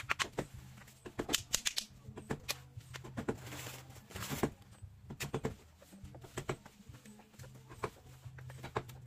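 Scattered sharp clicks and knocks of objects being handled, with a short rustle about three and a half seconds in, over a low steady hum.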